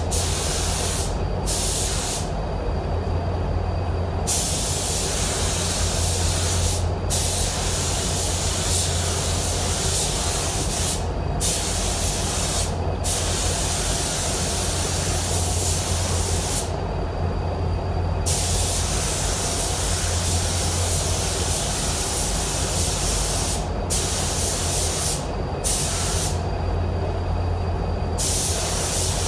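Compressed-air paint spray gun laying solvent basecoat: a loud, steady hiss of air and atomised paint that breaks off again and again for a moment, up to a couple of seconds, as the trigger is released between passes. A steady low hum runs underneath throughout.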